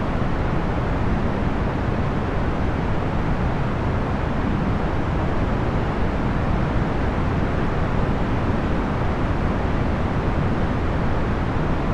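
Procedurally generated box fan noise: a steady, even whoosh of air, heaviest in the low end, with no motor hum or rhythm.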